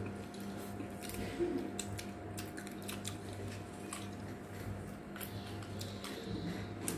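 Scattered soft clicks and crackles of someone eating, over a steady low electrical hum.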